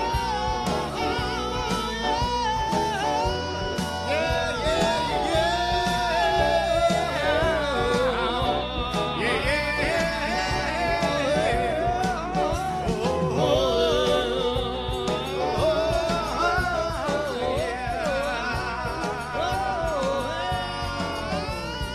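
A song being performed: a voice singing a melody with wavering, ornamented notes over instrumental accompaniment.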